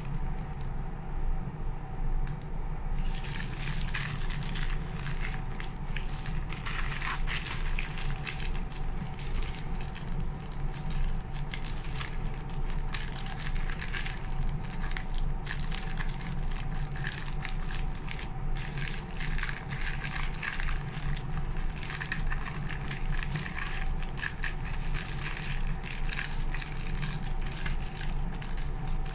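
Plastic poly mailer bag crinkling and rustling in irregular crackles as it is handled and cut open with scissors, lighter for the first few seconds, over a steady low hum.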